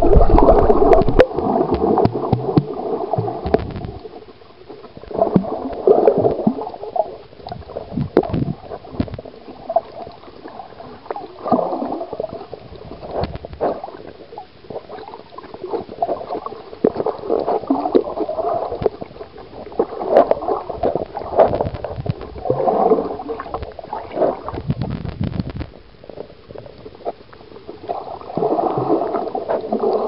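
Muffled underwater gurgling and sloshing picked up by a camera held below the surface, coming in bursts every two to three seconds with scattered small clicks. It rumbles more heavily for the first few seconds.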